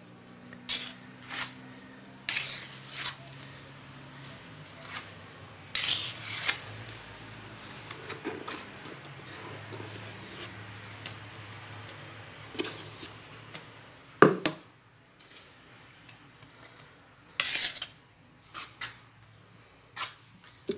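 A spatula scraping and tapping against a metal cake ring and its board while spreading and smoothing chocolate mousse, in irregular short strokes, with one sharp knock about two-thirds of the way through.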